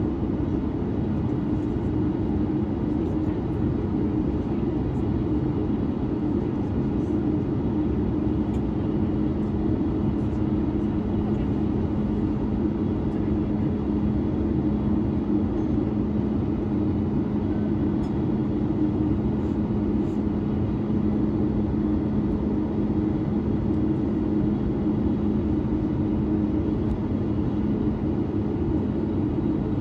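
Steady drone inside the cabin of a Boeing 737-9 MAX on the ground, with two steady low hum tones over a wide rush of noise; the lower hum grows firmer about six seconds in.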